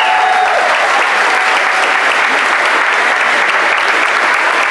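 Crowd applauding: steady, dense clapping.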